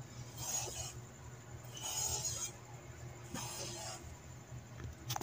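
Three soft scrapes, about a second and a half apart, as a gloved hand handles the shift mechanism on top of a manual gearbox, over a faint steady low hum.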